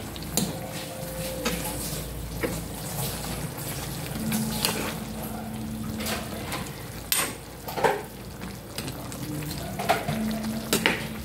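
Meat and vegetables sizzling in a frying pan on a gas burner while a metal ladle stirs them, with irregular scrapes and clinks of the ladle against the pan.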